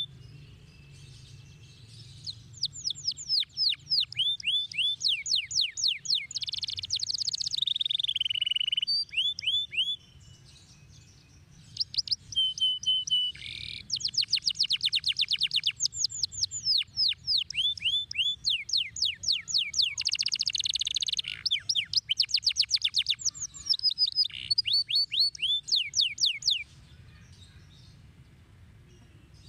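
Domestic canary singing in long bouts of fast trills, each made of rapidly repeated downward-sliding notes. The song breaks off briefly about ten seconds in and falls quiet near the end.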